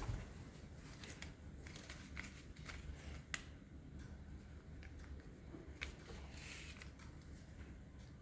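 Faint handling of origami paper: scattered small ticks and a soft rustle as the paper is folded and creased.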